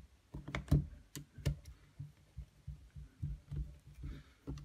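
Light clicks and taps of small screws and metal parts being handled against an airsoft gearbox shell, with dull low bumps of hands on the workbench. The clicks come thickest in the first second and a half.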